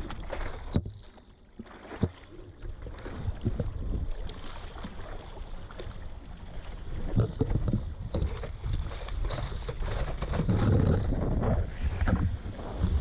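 Water splashing and sloshing against a surfboard as a surfer paddles through the surf with his arms, picked up close by a pole-mounted action camera, with gusts of wind on the microphone. The irregular splashes grow louder and fuller near the end as whitewater surges around the board.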